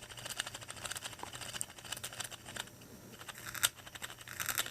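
Motorized graver tool at very low power scraping the tiny metal contacts of a mouse button switch, a faint dense run of ticks and scratches with a louder tick about three-quarters of the way through. The contacts are being cleaned because they had lost contact, leaving the button unresponsive.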